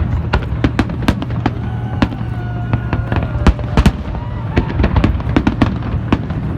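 Fireworks display: a rapid, irregular succession of sharp bangs and crackles from bursting shells, several a second, over a continuous low rumble.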